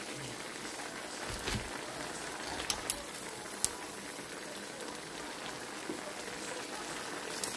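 Broth simmering in a frying pan under a heap of dry pancit canton noodles, a steady bubbling hiss. A few sharp clicks come about three seconds in.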